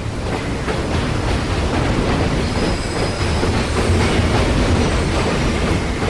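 Train rolling along the rails at a station: a steady, dense low rumble that grows a little louder at the start, with faint thin high squeals of the wheels partway through.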